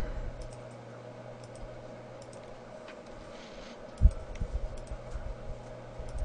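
Sparse computer mouse and keyboard clicks as mesh vertices are selected and faces filled. About four seconds in comes a short run of low thumps and rumble on a microphone left without its windscreen, over a steady low hum.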